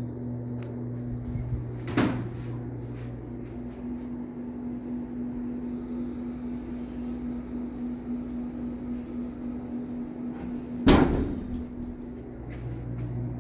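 Elevator's sliding doors closing and meeting with a loud thud about eleven seconds in. A sharper knock comes about two seconds in, over a steady low hum.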